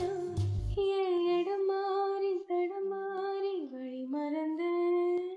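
A song's full mix with bass and drums for under a second, then the singing voice alone, holding long notes and dipping in pitch once for about half a second: the vocal stem pulled out of the mix by a source-separation model.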